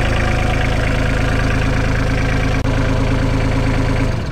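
Isuzu 3LD1 three-cylinder diesel engine idling steadily just after an oil change, with oil pressure built up; the engine sound stops just before the end.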